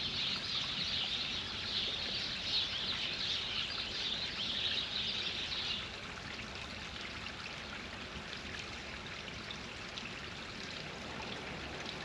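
Small birds chirping in a dense chorus over the steady trickle of a garden water feature; the chirping stops about halfway through, leaving the trickle.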